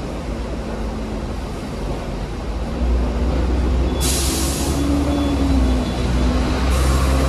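Hong Kong VVVF tram running on its rails, a steady low rumble with a faint motor whine that grows louder about three seconds in. Two short hisses of air break in, about four seconds in and again near the end.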